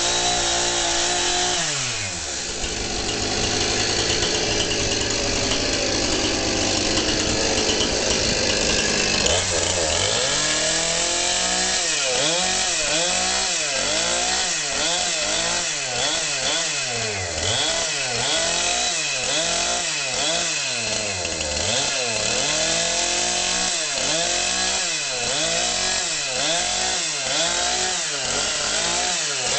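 Chainsaw cutting into a straw bale. Its engine pitch drops about two seconds in, then from about ten seconds in rises and falls over and over, about once a second.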